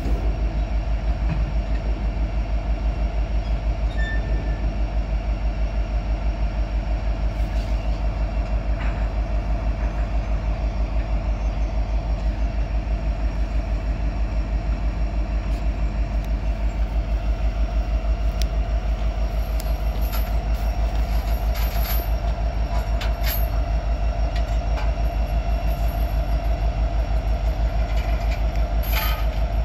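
EMD SD70M-2 diesel locomotive running steadily: a deep, fast-pulsing engine rumble with a steady whine over it and a few faint clicks.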